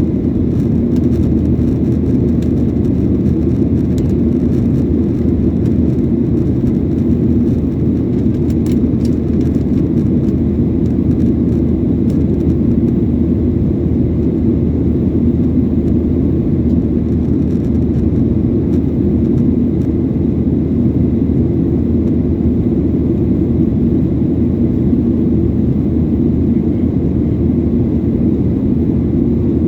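Steady drone inside an airliner's cabin in flight, from the engines and the air rushing past the fuselage. It is deep and unchanging.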